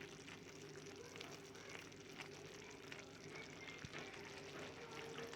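Pot of rice pilau simmering on the stove with fresh stock added: faint, steady bubbling and sizzling with scattered small pops, over a low steady hum.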